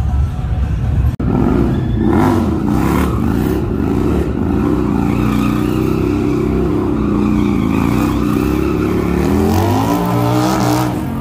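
Motorcycle engines revving and running at changing speeds, the pitch rising and falling, with a rising rev near the end. A brief dropout about a second in.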